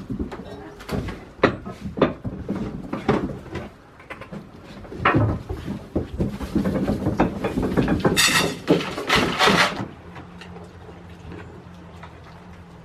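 Goats moving about: a run of knocks and scuffs, with a louder rustling stretch from about eight to ten seconds in, then a low steady hum.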